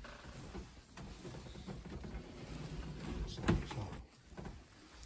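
Faint rustling and handling noise as a phone camera is moved about, with a single knock about three and a half seconds in.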